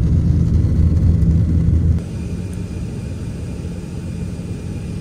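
Jet airliner heard from inside the cabin: a loud low engine rumble as the plane rolls along the runway, cutting off suddenly after about two seconds to a quieter, steady cabin hum.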